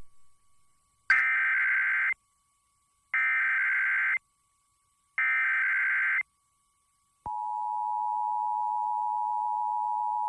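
Emergency Alert System test broadcast: the SAME digital header sent three times as one-second bursts of screeching data tones, about two seconds apart. About seven seconds in, the steady two-tone EAS attention signal starts and holds.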